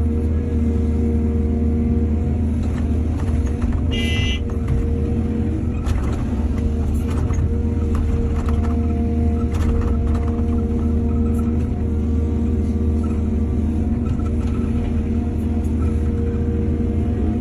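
Heavy diesel earthmoving machinery running steadily, with a few short knocks and a brief high squeal about four seconds in.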